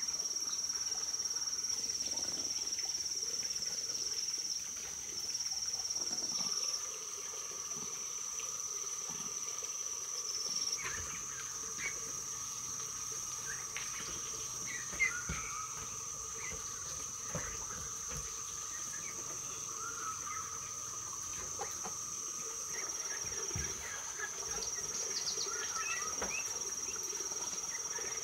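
Steady high-pitched drone of insects, with scattered short chirps in the second half and a single sharp knock about halfway through.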